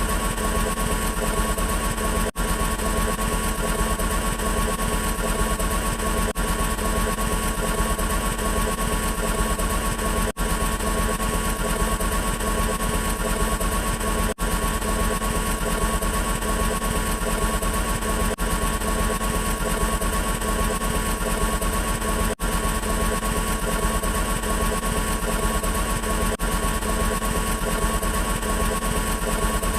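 Loud steady mechanical-sounding buzz with several fixed tones, broken by a split-second gap about every four seconds, like a short sound-effect clip played over and over.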